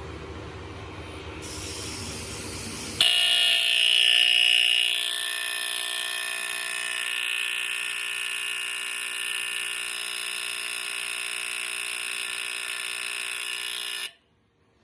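Edwards 217 smoke alarm going off: a steady, continuous horn tone rich in overtones starts suddenly about three seconds in and cuts off abruptly near the end. Before it there is a low rumble and then a high hiss.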